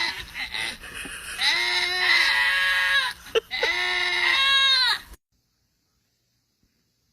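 An animal giving three long, drawn-out pitched cries, each rising and falling in pitch, then silence for the last two seconds.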